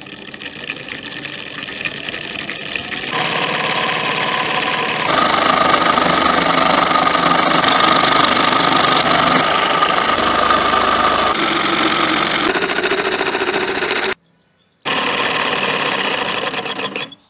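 Small DC motor driving a homemade PVC scroll saw through a belt, its blade running up and down steadily while it cuts wood. It gets louder over the first few seconds and shifts in pitch now and then. It stops for under a second about fourteen seconds in, then runs again.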